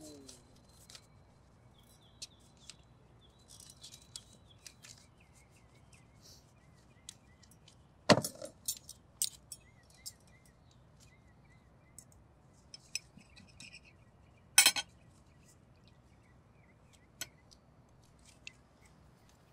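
Scattered light clinks and taps of cutlery and tableware on an outdoor table, with two louder knocks about eight and fourteen seconds in. Faint bird chirps sound in the background.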